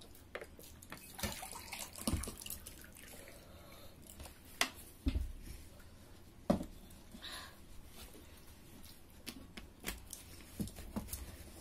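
People drinking water and eating by hand at a table: sips and swallows, with several sharp knocks as glasses are set down on the tabletop.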